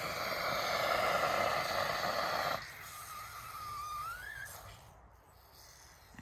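Pressurised air hissing out of a fire extinguisher as it is depressurised, for about two and a half seconds, then cutting off suddenly. A fainter whistle follows, wavering and then rising in pitch.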